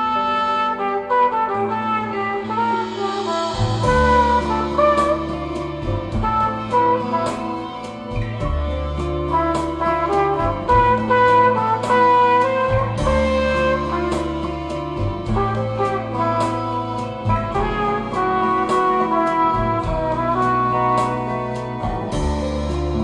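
Instrumental jazz-toned music played through Fyne Audio F1-8 floorstanding loudspeakers and picked up by room microphones. A deep bass line of long held notes comes in after about three and a half seconds, under a melodic lead and light, regular percussion taps.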